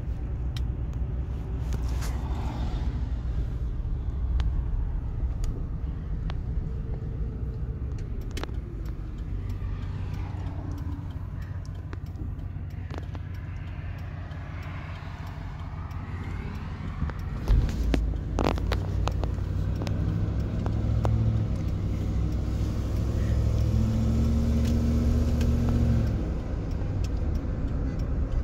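Car driving on a road, heard from inside the cabin: a steady low engine and road rumble. There are a couple of sharp knocks a little past halfway, and the rumble grows louder in the second half, dropping off shortly before the end.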